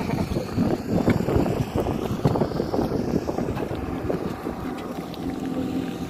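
Wind buffeting the microphone: an irregular low rumble and flutter.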